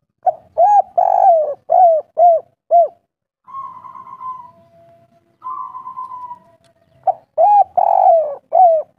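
Spotted dove (tekukur) cooing. A run of short, rounded coos comes first, then two longer rolling notes in the middle, then another run of coos near the end.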